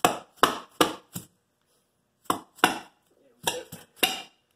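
A dead blow hammer strikes the rear main seal plate of a Honda F23A1 engine block to knock it loose: about eight sharp blows, four in quick succession, a pause, then four more.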